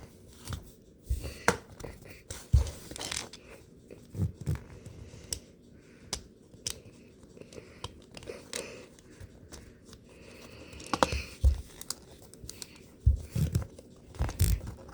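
Plastic LEGO pieces clicking and rattling as they are handled and pressed together, in irregular sharp clicks with a few dull knocks of pieces against the work surface.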